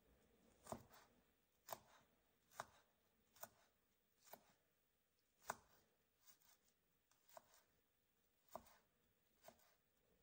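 Wide-bladed kitchen knife chopping garlic cloves on a wooden cutting board: short, sharp knocks of the blade on the board, roughly one a second.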